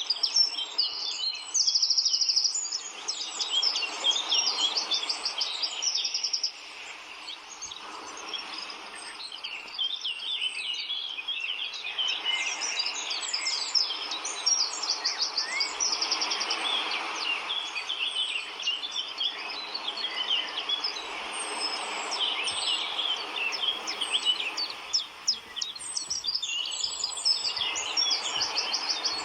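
Tropical forest birds chirping and calling densely, including a fast pulsed trill that recurs several times, over a steady rushing noise and a thin high steady tone.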